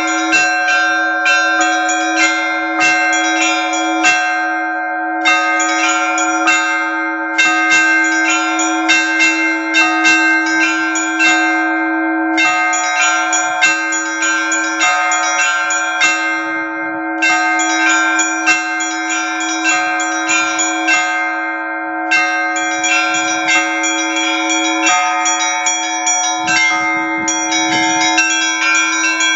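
Russian church bells ringing (kolokolny zvon). Rapid runs of strikes on the small high bells are broken by short pauses every few seconds, over the steady, pulsing hum of a larger bell.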